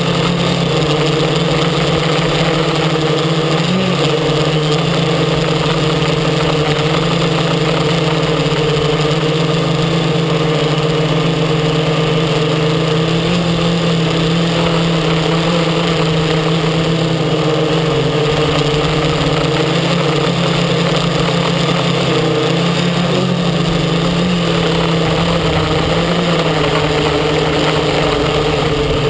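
X650 quadcopter's electric motors and propellers humming steadily, with small shifts in pitch a few times as the throttle changes.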